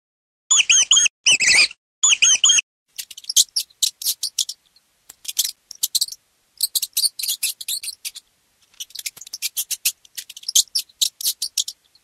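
Mouse squeaking: three quick runs of high, pitched squeaks at the start, then rapid bursts of short, high chirping squeaks on and off.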